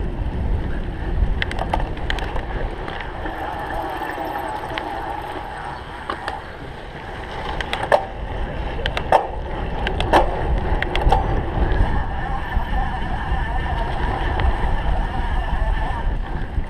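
Wind rushing on the microphone over a cyclocross bike rolling across rough ground, with sharp knocks and rattles from the bike over bumps, the clearest from about eight to eleven seconds in.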